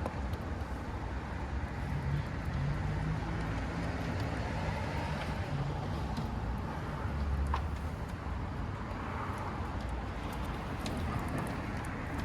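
Steady low rumble of road traffic, with a low engine-like hum wavering a couple of seconds in and a heavier swell near the middle.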